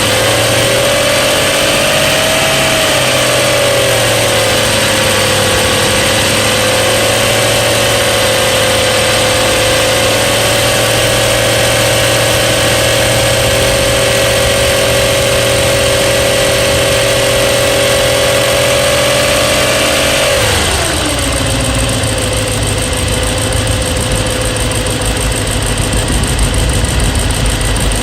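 BMW E92 M3's naturally aspirated 4.0-litre S65 V8 idling, with the ticking noise its owner is documenting: worst from cold and still present when warm. A steady high whine sits over the idle, and about twenty seconds in it drops in pitch and the idle settles lower.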